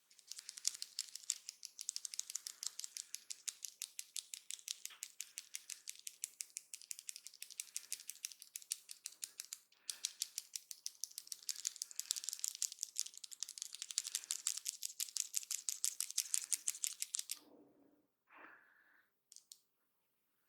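Fast, regular crackling strokes of hands working through hair and scalp in a head massage, several a second, with a short break about halfway and a stop a few seconds before the end.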